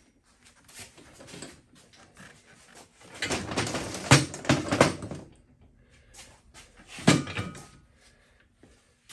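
Front wheel of a Honda XL70 minibike being worked free of its fork legs and lifted away: a few light knocks, then a couple of seconds of clattering and scraping about three seconds in, and one sharp knock near seven seconds.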